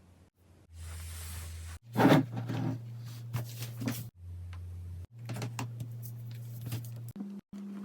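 Hands handling a camera box and its packaging: scattered clicks, knocks and rustles, the loudest about two seconds in, over a steady low hum that stops and changes abruptly several times.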